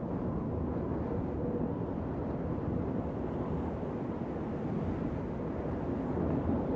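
Wind blowing over the microphone: a steady low rumble that flutters quickly without pause.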